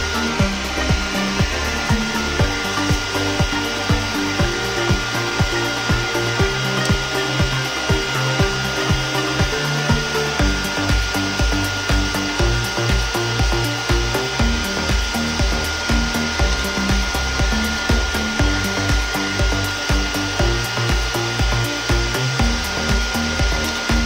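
Small electric motor and fan of a homemade soda-can hair dryer running steadily, with a steady high whine and a rush of air, under background music with a steady beat.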